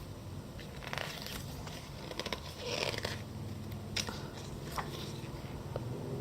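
Pages of a thick photo magazine being turned by hand. A few short paper rustles and light taps, the fullest rustle just before the middle, over a faint steady hum.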